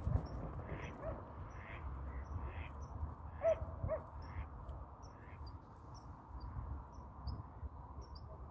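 Birds calling across open water: a run of short harsh calls about twice a second that fades out after about five seconds, two lower calls about three and a half seconds in, and faint high chirps throughout, over a low steady rumble.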